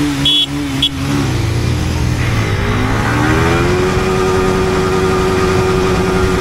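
Two short horn beeps in the first second give the start signal, with a motorcycle engine held at raised revs. Then the Yamaha R15 V4's 155 cc single-cylinder engine launches hard in first gear: its note climbs steadily and levels off at a high, steady pitch near the top of first gear, with the other racing bikes' engines alongside.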